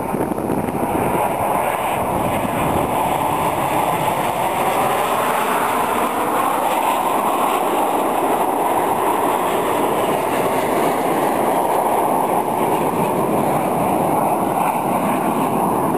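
Snowbirds' CT-114 Tutor jets flying over in formation: a steady jet roar that swells a little midway.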